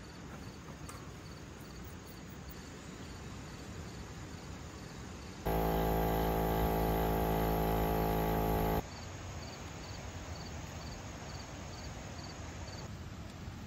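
Crickets chirping, a faint high pulse repeating steadily. About halfway through, a steady humming machine sound with a buzzy, many-toned quality starts abruptly, runs for about three seconds and cuts off just as suddenly.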